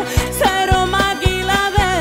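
Live Roma orchestral music: a melody line over a steady drum beat of about four strokes a second.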